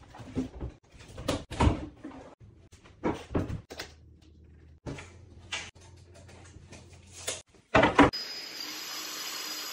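Kitchen cabinet parts being handled and fitted: a run of wooden knocks, bumps and short scrapes, the loudest just before eight seconds in. Then a steady whirring hiss starts suddenly and carries on.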